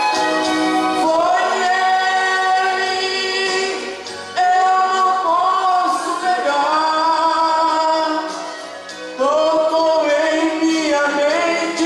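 A man singing a slow gospel song into a handheld microphone, holding long notes in three phrases, with short breaks about four and nine seconds in.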